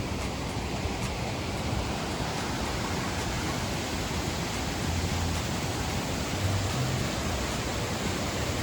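Steady rushing roar of the Pancada Grande waterfall: a dense, even wash of falling water with no break.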